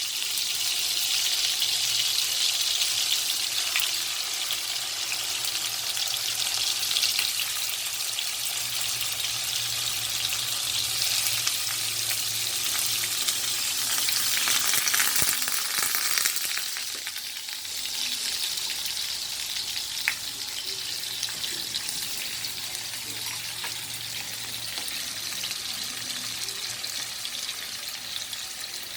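Tofu slices frying in hot cooking oil in a pan: a steady sizzle that eases somewhat about halfway through.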